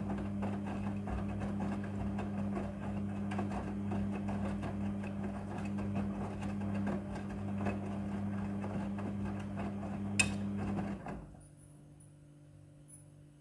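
Midea front-loading washing machine running with a steady hum and constant light clattering. About ten seconds in there is a sharp click, and a second later the machine stops, leaving only a faint hum.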